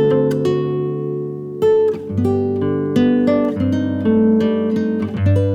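Background music: acoustic guitar picking notes and chords, each pluck ringing out and fading, with new plucks about every second.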